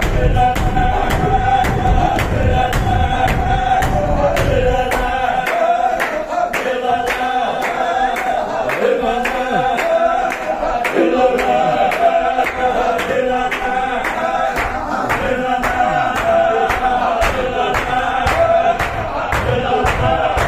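A group of men chanting a Sufi zikr in unison, holding long sung tones over a sharp rhythmic beat about twice a second. A heavy low thudding under the chant drops away about five seconds in.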